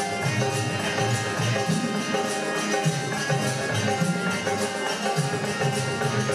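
Live Fiji tambura bhajan ensemble playing: harmonium holding steady notes over dholak drum strokes, with jhanjh cymbals and tambourines keeping a fast, even jingling beat.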